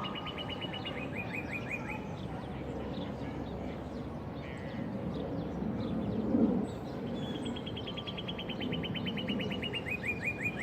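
A songbird singing a trill of rapid, evenly repeated notes that drops in pitch at the end, heard twice: one song ends about two seconds in and another begins about seven seconds in. It is a male singing for a mate's attention, over a steady low city hum.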